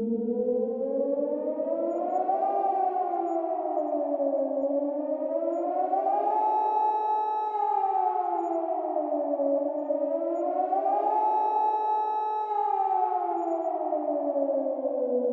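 Civil defence siren wailing a nuclear attack warning: two tones sound together, rising and falling slowly about three times, held at the top for a second or so before each fall.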